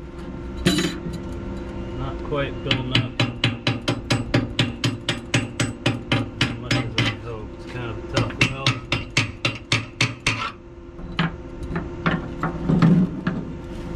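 Chipping hammer rapping on a fresh stick weld around a steel deck pipe penetration to knock off slag: a quick, even run of sharp taps, about four to five a second, then a few slower strikes near the end.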